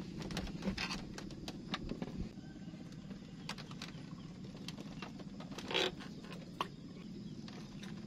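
Faint clicks and handling noise of a fishing rod and reel being baited and cast, with a brief louder rush of noise a little before six seconds and a sharp click soon after, over a low steady hum.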